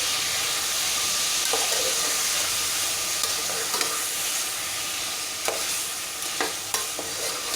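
Chicken frying in hot oil and ghee over a high flame, a steady sizzle, while a spoon stirs it in the pot. A few short knocks of the spoon against the pot come in the second half.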